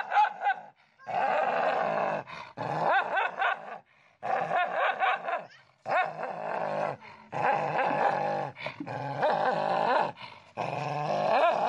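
A dog growling and snarling, teeth bared, in repeated bouts of a second or so with short pauses between them: an aggressive display at its own reflection in a mirror, which it takes for a rival dog.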